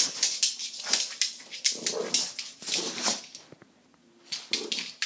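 Wet dog rolling and rubbing itself on a wooden floor to dry off, fur and claws scuffing the boards in quick irregular rubs, with a few short vocal sounds from the dog. The scuffing stops briefly a little before the end.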